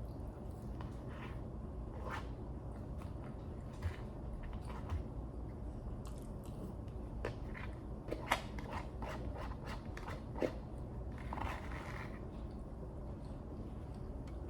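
A person chewing and biting food close to the microphone: scattered crunches and wet mouth clicks over a steady low hum.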